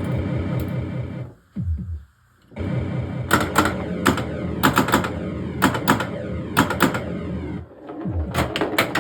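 1979 Williams Gorgar pinball machine in play: its electronic sound effects sound alongside rapid sharp clacks of flippers, bumpers and solenoids. The sound drops away briefly about one and a half seconds in, then the clacking and tones pick up again.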